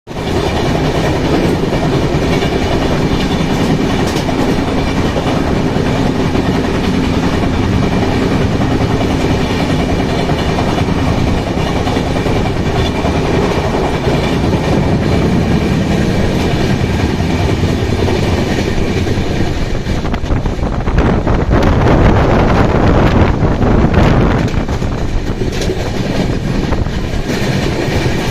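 Indian Railways LHB coach running on the track at about 130 km/h: a steady, loud rumble of wheels on rail with scattered clicks. The running noise grows louder and rougher from about twenty seconds in, then eases near the end.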